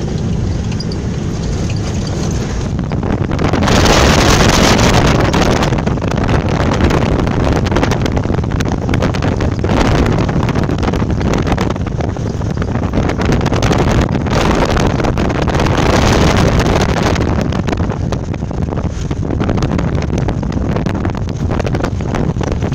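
Wind buffeting the microphone over the steady rumble of a vehicle driving on an unpaved dirt road, with a loud gust of wind noise about four seconds in.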